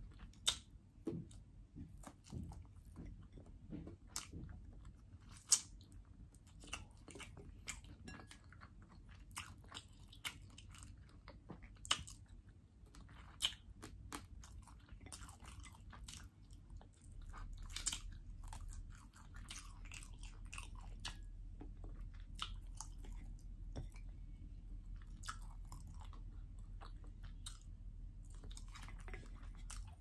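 Close-up eating sounds of roasted chicken and fried potatoes: chewing and biting with irregular sharp crunches and mouth clicks, the loudest crunch about five seconds in. A low steady hum sets in about halfway.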